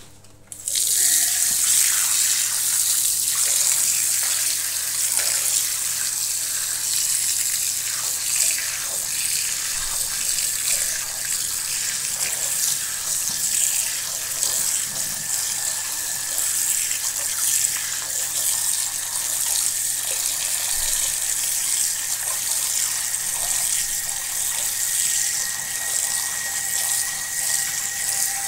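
Water running from a chrome cross-head twist tap into a ceramic washbasin, coming on about half a second in and then running steadily, splashing over a hand held in the stream. A faint thin whistle sits under the rush.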